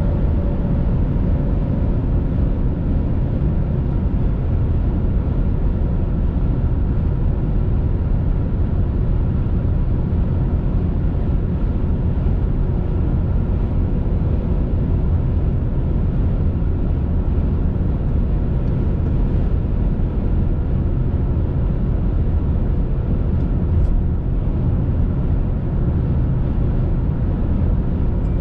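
Steady road and engine noise heard from inside a car's cabin at highway speed, a constant low rumble.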